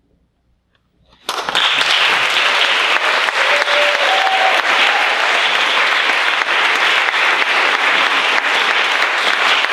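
Brief near silence, then audience applause breaks out suddenly about a second in and carries on steadily.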